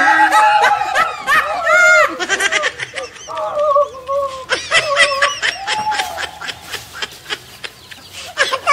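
Human voices crying out and laughing in quick, broken bursts of rising and falling pitch.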